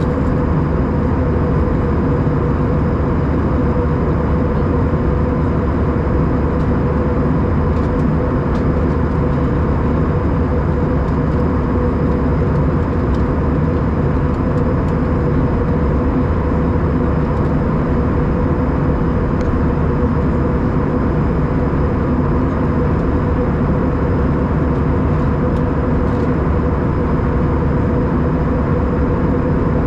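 Steady cabin noise inside an Airbus A319 in flight: the jet engines and rushing air, with a steady hum running through it.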